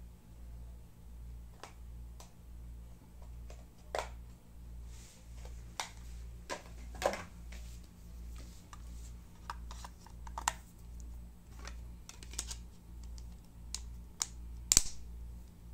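Scattered small plastic clicks and taps from a Huawei pocket WiFi router being handled, its back cover taken off and the unit turned over in the hands, with one sharper click near the end. A steady low hum that pulses about twice a second runs underneath.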